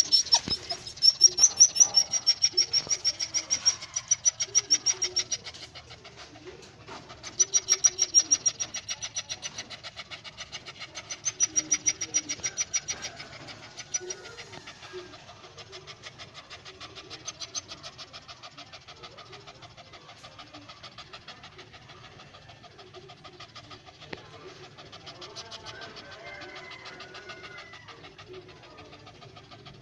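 Dogs panting in quick, even breaths, louder in spells over the first half and softer after, with birds calling in the background.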